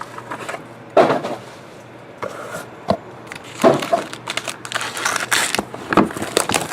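A trading card pack and its box being handled and opened: crinkling and rustling with several sharp clacks and knocks of cardboard and cards.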